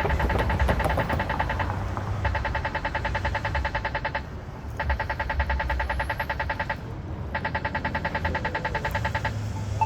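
Polara EN4 accessible pedestrian signal push button sounding its rapid tick, the tone that marks the walk interval. The ticks come fast in runs about two seconds long, repeating about every two and a half seconds.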